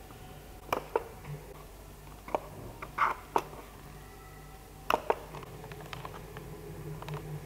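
Several sharp, irregularly spaced clicks of a keyboard and pointer being operated, with a faint steady low hum underneath.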